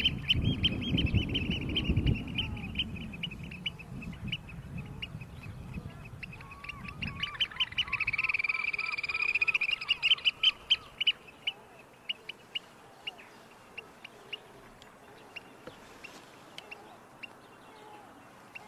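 Birds calling: rapid, high-pitched repeated chirps, several a second, that thin out to scattered single chirps over the second half. A run of lower, quickly repeated notes comes in about seven seconds in, and a low rumble sits under the first several seconds.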